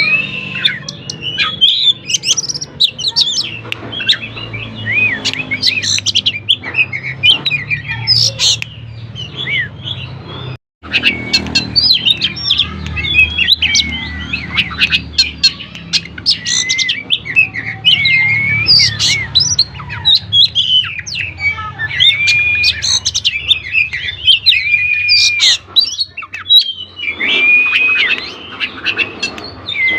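Oriental magpie-robin (kacer) in full song: a continuous, varied run of loud whistles, slurred notes and chirps, with a short break about ten seconds in.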